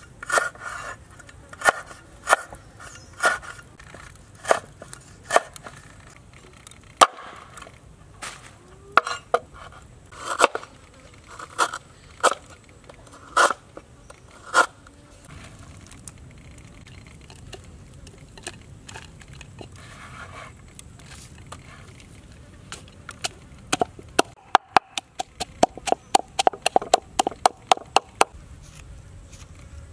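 Knife chopping through lemongrass and galangal on a wooden cutting board, single knocks roughly once a second. After a quieter stretch, a wooden pestle pounds the chopped aromatics in a wooden mortar near the end, about four quick strikes a second.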